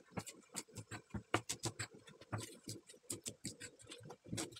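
Cleaver chopping pak choy on a plastic cutting board: a quick, irregular run of sharp knife taps against the board, several a second.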